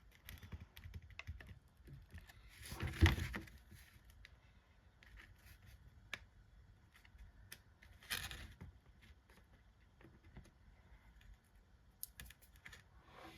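Small taps, clicks and rustles of chipboard box pieces being handled and pressed together, with a louder brief rustle about three seconds in and another at about eight seconds.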